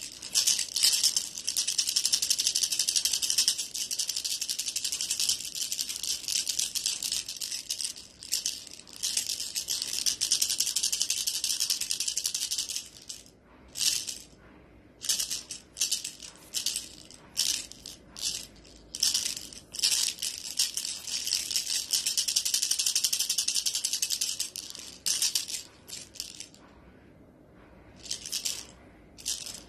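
A cat toy being shaken above a cat, giving a high, hissing rattle: long unbroken runs of shaking, then short bursts with brief pauses, and a quiet stretch near the end.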